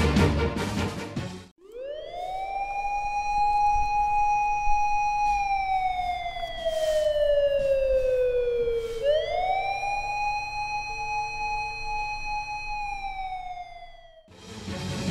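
Japanese police car siren wailing in two cycles: each quickly rises to a high held note, holds for a few seconds, then slides slowly down. Background music stops just before it and comes back at the very end.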